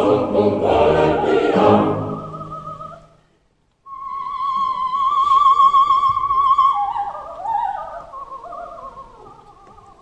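Live opera: chorus and orchestra fade out and break off, then a solo coloratura soprano holds a high note with wide vibrato. Her line then steps down in pitch, growing softer.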